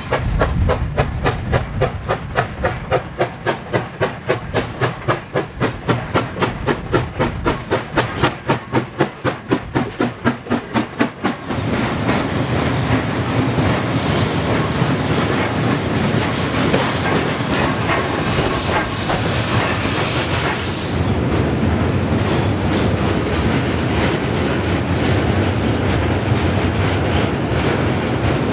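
SY-class 2-8-2 steam locomotive working hard with rapid, regular exhaust chuffs. About eleven seconds in, this gives way to the steady noise of the locomotive shunting, with steam hissing until about two-thirds of the way through and a rolling rumble after that.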